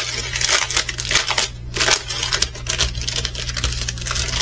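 Small plastic bags of diamond painting drills crinkling and rustling as they are handled, with crackly clicks throughout.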